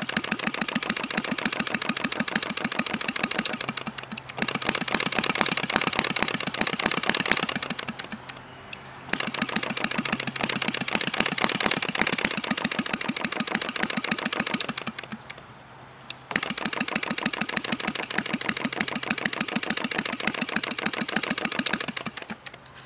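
Rudy Kouhoupt-design model non-compression engine, spark-ignited and running on Coleman fuel, firing with a rapid, even clatter of sharp pops. Twice, about 8 and 15 seconds in, the pops die away for about a second and then pick up again.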